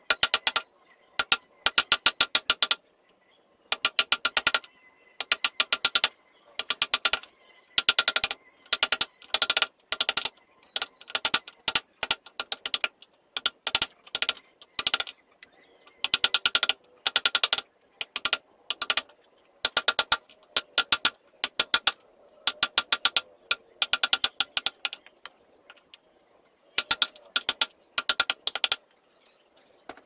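Hand drill boring into a small wooden slat, giving off rapid runs of mechanical clicks that start and stop every second or so.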